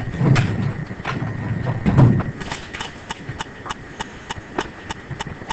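A couple of dull low thumps, then from about two seconds in a quick, even run of light sharp clicks or taps, about four or five a second.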